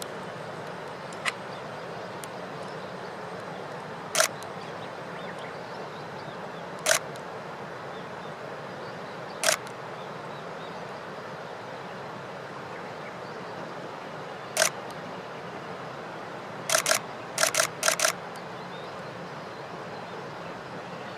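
Camera shutter clicks: single shots several seconds apart, then a quick run of about six near the end, over a steady background hiss.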